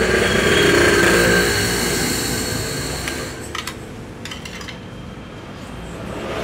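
A steady engine rumble with a hiss, like motor-vehicle noise, loud at first and fading away over about three seconds, then a few light clicks and taps.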